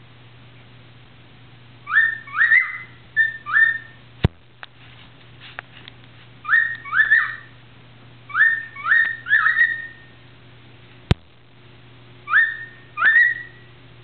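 Cockatiel whistling: four short phrases of two to five notes, each note sliding upward, with pauses between them. Two sharp clicks fall between the phrases, over a steady low hum.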